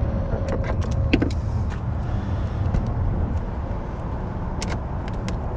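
Scattered light clicks and taps of generator parts being handled and fitted, over a steady low background rumble.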